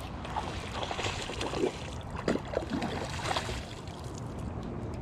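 Water sloshing and splashing with a few irregular splashes, as a hooked bass is fought at the side of a small fishing boat.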